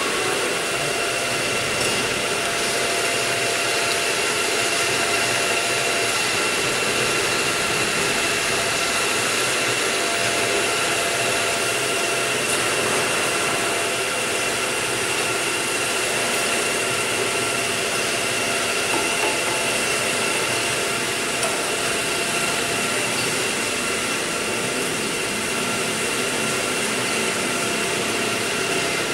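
Electric motor and hydraulic pump of a cocoa butter press running, a steady whine over a hiss with no change in pitch or level.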